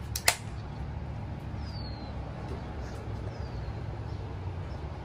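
Aluminium hard-seltzer can cracked open with one sharp pop as it is shotgunned, the tab opened while the mouth is on the punctured side. After it comes a steady low background rumble, with a short high falling whistle, like a bird call, every couple of seconds.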